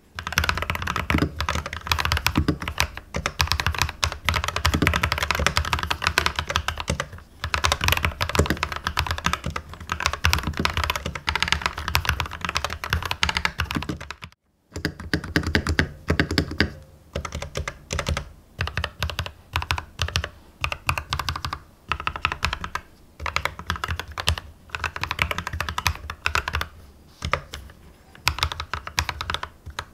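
Typing on a Corsair K65 Plus Wireless mechanical keyboard with linear Corsair Red switches: fast, continuous keystrokes, a brief stop about halfway, then typing in shorter bursts with pauses. The keystrokes are soft and muted rather than a clattery clack.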